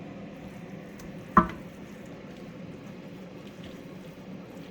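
A kitchen utensil strikes cookware once, a sharp clink with a brief ring about a second and a half in, over a steady low hiss.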